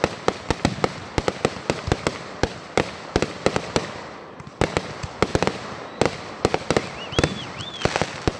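Fireworks going off in a rapid, irregular string of sharp pops and bangs, easing briefly about halfway through. Two short whistling tones come near the end.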